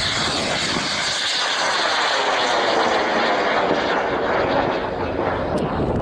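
Aerotech K250 long-burn solid rocket motor burning as the rocket climbs away: a loud, steady rushing noise whose pitch slides lower over the first few seconds.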